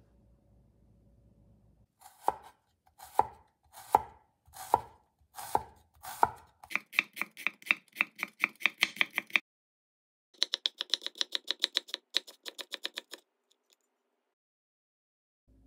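Large knife slicing shallots on a wooden cutting board: six slow, separate chops, then two runs of quick, even slicing at about five to six strokes a second with a short pause between.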